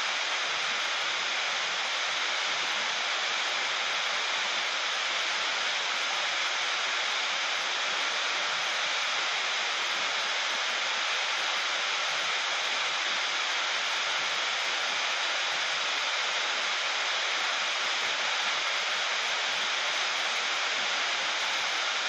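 Heavy rain on a sheet-metal roof: a dense, steady hiss of drops with no let-up and no thunder.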